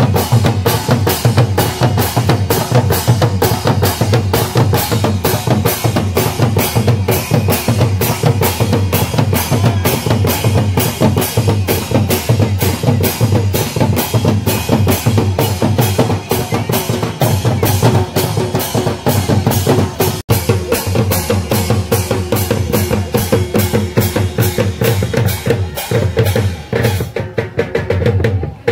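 Live folk drumming on several hand-played barrel drums: fast, continuous, even strokes, easing off near the end.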